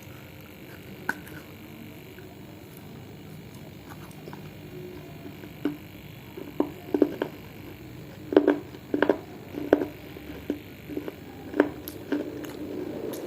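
Close-miked mouth sounds of a person eating edible clay and baked clay pot: after a quiet first half, a run of about a dozen short, sharp crunches and wet clicks from biting, chewing and swallowing.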